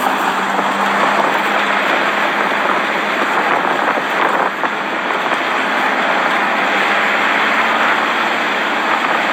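Steady rush of road and wind noise inside a moving car, with a faint low engine hum underneath.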